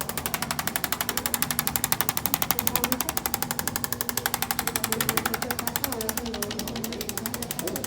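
Handheld electric percussion massager hammering on the back in a fast, even rhythm of about ten strikes a second, over a steady motor hum, used to reinforce a chiropractic adjustment.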